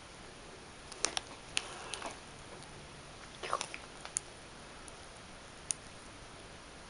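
A small kitten playing in a woven rope basket: scattered light clicks and taps, a small cluster about three and a half seconds in, with a couple of brief faint squeaks from the kitten.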